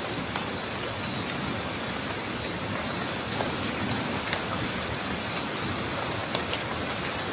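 Steady rushing hiss of the night forest outdoors, with a thin, high, unbroken insect-like drone and a few faint ticks.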